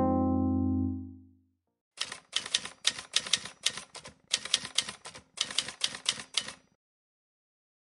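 A held keyboard chord fades out in the first second or so. About two seconds in, typewriter keystrokes clack in quick uneven runs for about four and a half seconds, then stop.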